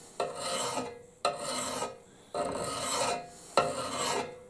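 Flat hand file drawn across the steel axe bit of a Pulaski held in a vise, grinding down chips in the edge. Four strokes about a second apart, each starting sharply and fading out.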